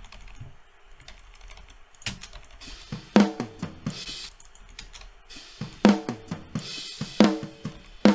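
Playback of a multitrack drum kit recording, starting about two seconds in. Sharp snare hits ring with a clear pitch, several to a second, with drum and cymbal wash between them.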